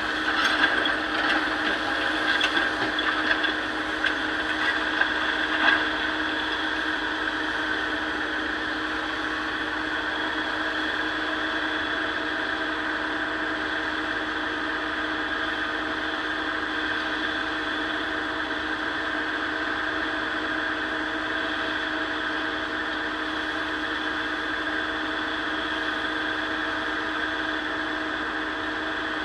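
Diesel engine of an excavator running steadily while loading stone into a dump truck, with irregular clattering and knocks of rock over the first six seconds or so, then only the steady engine.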